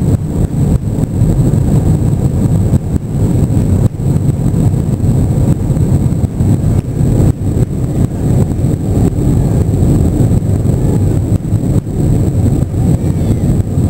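Airbus A321 heard from inside the passenger cabin: a loud, steady, rough low rumble of the jet engines and airframe, with a faint steady high whine above it.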